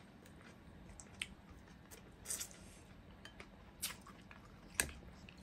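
Quiet wet chewing and lip-smacking of people eating steamed mussels and fried fish by hand, with a few soft clicks and one sharper click near the end.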